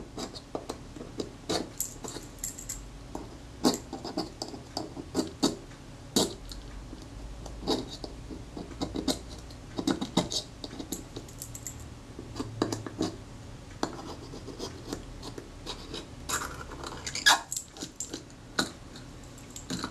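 Irregular scratching and clicking of a thin metal tool scraping old adhesive out of the recesses in a Kodak Retina IIIS camera's metal base-plate casting.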